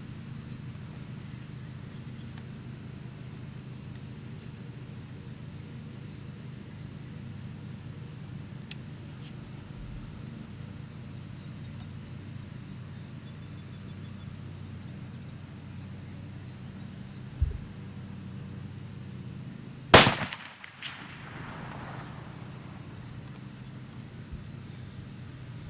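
A single shot from a .45-caliber muzzleloader rifle with a muzzle brake, loaded with 100 grains of Blackhorn 209 powder, about twenty seconds in; the report echoes away over about a second. A steady low hum runs underneath.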